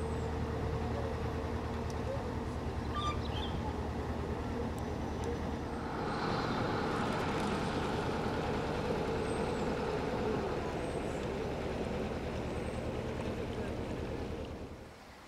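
A narrowboat's engine running steadily with a low hum as the boat moves off from its mooring. About six seconds in, the low note weakens and a louder hiss comes up, then the sound fades away near the end.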